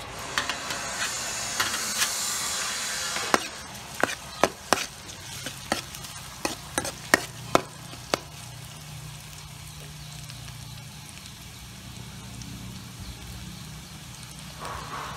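Minced garlic sizzling as it drops into hot oil in a steel wok. A metal ladle then clacks and scrapes against the wok about a dozen times while stirring, and the garlic settles into a quieter, steady sizzle.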